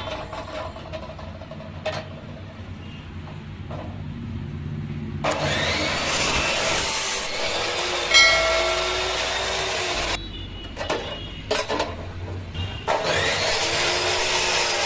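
Abrasive cut-off saw (chop saw) cutting through a motorcycle's metal crash guard: the wheel spins with a low hum, then grinds loudly through the metal for about five seconds starting about five seconds in. After a few short clicks it grinds through a second cut near the end.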